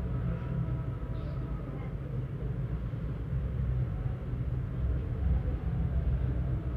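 Steady low background rumble with a faint hum, with no distinct knocks or clicks.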